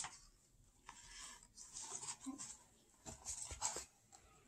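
Faint rustling of a hardcover picture book's paper pages as a page is turned and the book is handled: a few soft rustles spread over a few seconds.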